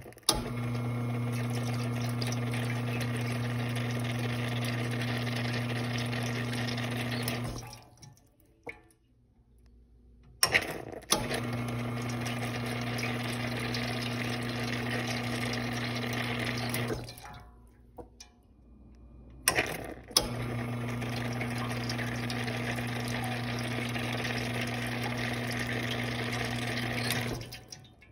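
Lelit Bianca espresso machine's rotary pump running water through the open group head three times, about seven seconds each: a steady pump hum under the hiss and splash of water into the drip tray, each run starting with a sharp click and stopping cleanly. These are flushes that check whether the water flash-boils to steam at the group.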